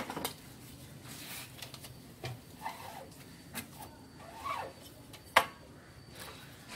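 Hand silk-screen printing of a card: paper rustling and short scrapes on the wooden screen frame, with one sharp wooden knock a little past five seconds in as the frame is handled and lifted.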